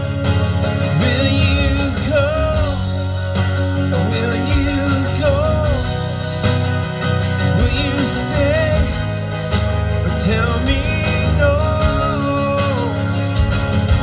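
Live band playing an instrumental break in a country-rock song: a melodic lead line that bends and wavers in pitch over a steady bass and beat.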